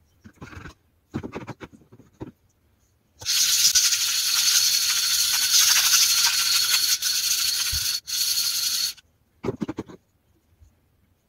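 An Apex-format sharpening stone rubbed back and forth on a gabbro granite lapping plate in wet abrasive slurry, a gritty scraping as the stone is flattened. A few short scrapes come first, then a steady scrape from about three seconds in lasting some six seconds with one brief break, and one more short scrape after it.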